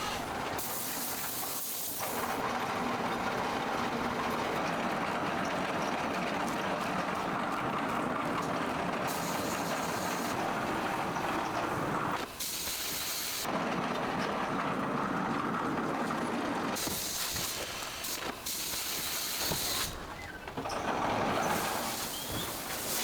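Steady hissing and running noise of factory machinery, in several stretches that change abruptly about 2, 12, 13.5, 17 and 20 seconds in.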